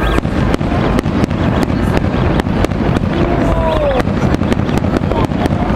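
Aerial fireworks display going off: a rapid, irregular string of bangs and crackles over a continuous low rumble.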